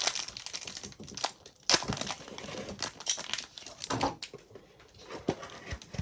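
Foil hockey-card pack wrappers crinkling and tearing open by hand, in irregular rustles and crackles with a sharp rip a little under two seconds in.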